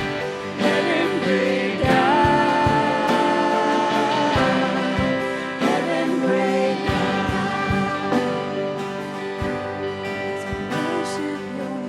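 Worship song: singing over acoustic guitar, with a voice holding one long note about two seconds in.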